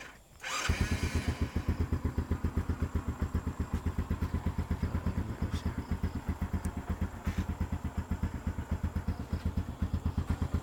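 Motorcycle engine started on its electric starter, catching within the first second, then idling steadily with an even pulse.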